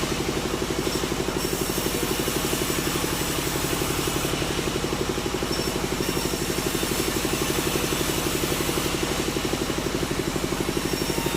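Engine idling steadily with a fast, even chugging pulse.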